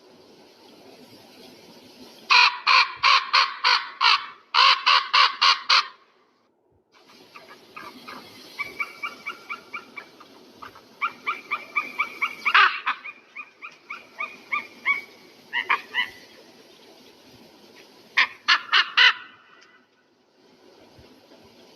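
An eagle calling in runs of rapid, sharp repeated notes, about four a second, with quieter chattering calls in between.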